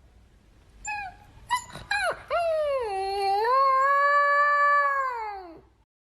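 A dog howling: a few short yips about a second in, then one long howl that dips in pitch, holds steady and falls away near the end.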